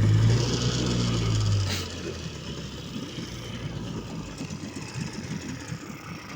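Vikhr two-stroke outboard motor running, then dying about two seconds in; the stall leaves the men deciding to take it apart again. A fainter irregular rattle and splash-like noise follows.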